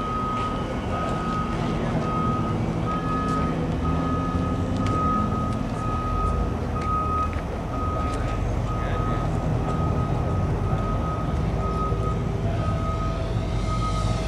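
A construction machine's backup alarm beeping steadily and evenly, over the low rumble of heavy diesel equipment. Near the end, a small electric RC plane's brushless motor whines past with its pitch falling.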